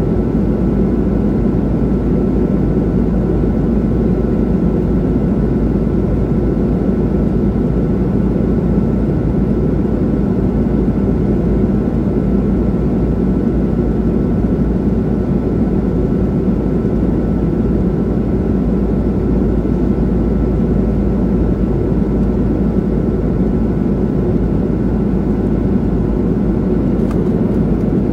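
Boeing 737 passenger-cabin noise in flight: a steady, unchanging rush of airflow and jet engine noise, with a faint steady whine above it.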